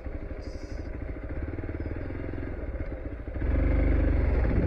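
Hero Xpulse 200 4V's single-cylinder engine running at low speed with a rapid, even firing pulse, getting louder about three and a half seconds in.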